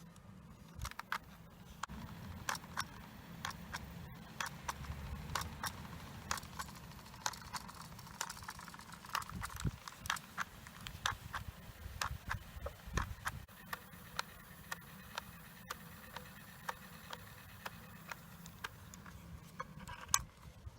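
Irregular small clicks and light taps of hard plastic and metal as the cassette Walkman and its small mechanical parts are handled, over a faint low rumble.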